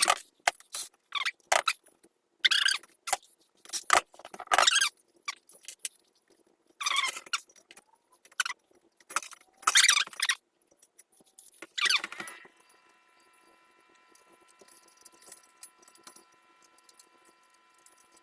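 Metal parts of a garden cart clinking and rattling as they are handled during assembly, in a dozen or so irregular jangling bursts over the first twelve seconds, then only a faint steady hum.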